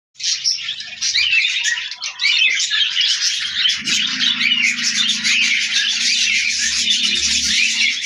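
Many budgerigars chattering together, a dense continuous mass of overlapping high chirps.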